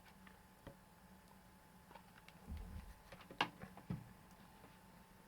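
Quiet handling noise from hot-gluing small plastic parts: a few scattered light clicks and knocks, the sharpest about three and a half seconds in, over a faint steady hum.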